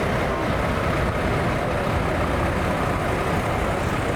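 Show truck's V8 engine running steadily with a deep, even rumble.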